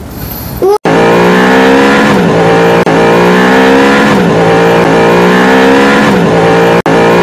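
Race-car engine sound effect: an engine accelerating hard through the gears, its pitch climbing and dropping back at each shift about every two seconds. It starts about a second in.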